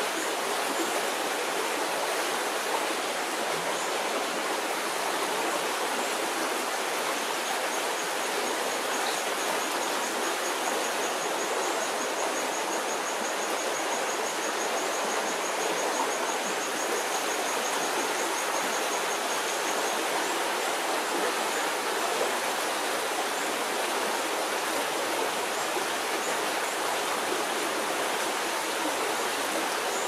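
Shallow stream flowing over rocks: a steady, even rush of water.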